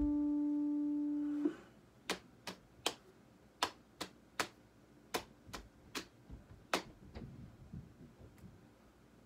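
A single held note on an electric stage piano, sounding steadily and then cut off sharply about a second and a half in. Then ten sharp clicks in a song rhythm, three groups of three and a last single one, the rhythm of a tune tapped out for listeners to guess.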